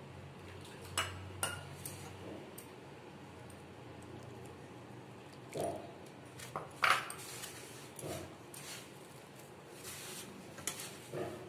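A hand mixing wheat flour and ground spinach paste in a steel plate: soft rubbing and scraping, broken by a few sharp metallic clinks against the plate, the loudest nearly seven seconds in.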